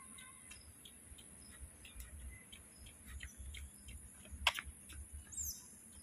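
Steady high-pitched insect drone with many small sharp clicks, one louder click about four and a half seconds in, and a brief high falling chirp a second later.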